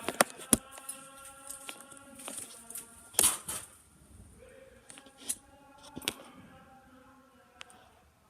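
Sharp metallic clicks and clinks of a metal cable connector being handled against an electrical panel, a handful of them, the loudest about three seconds in.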